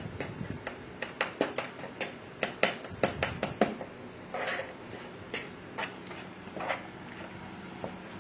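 Bare hands mixing a sticky rice and ground-turkey stuffing in a bowl: irregular wet clicks and squelches, with a couple of longer, softer squishes.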